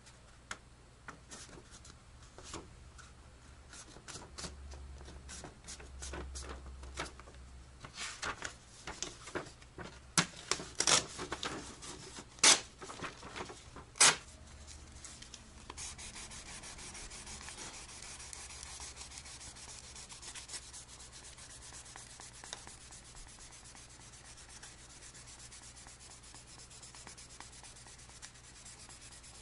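A sheet of fine sandpaper being bent and folded by hand, crackling with sharp snaps and a few loud cracks. About halfway through it gives way to steady rubbing as the folded sandpaper is worked over a hand-carved Japanese red oak (akagashi) shift knob.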